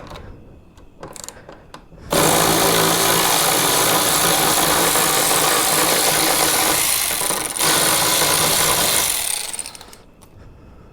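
A handheld power drill runs steadily for about seven seconds, driving a saddlebag mounting bolt, with a brief break about three-quarters of the way through.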